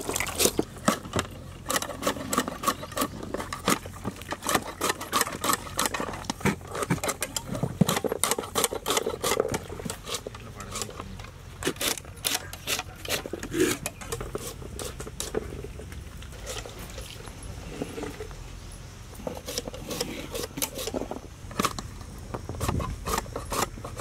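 Raw green mangoes being chopped into pickle pieces on large curved cutting blades: a stream of irregular, sharp chops and knocks, several a second at times, as the blades go through the hard mango and strike the wooden blocks beneath.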